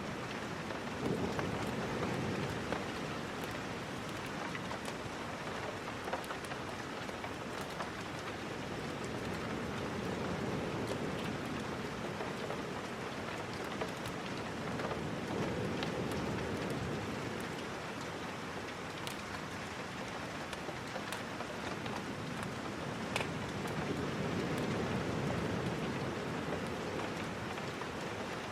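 Steady rain with scattered sharp ticks of drops. A low rumble swells and fades four times.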